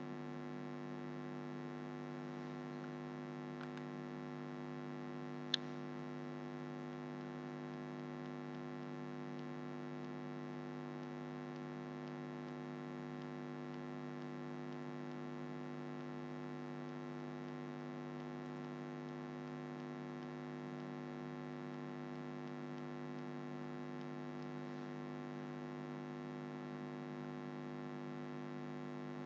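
Steady electrical mains hum made of several steady pitches, with a single sharp click about five and a half seconds in.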